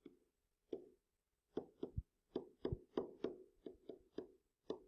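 Stylus tapping against a writing surface as handwriting goes down: a quick, irregular string of short taps, more than a dozen, a few with a dull thump.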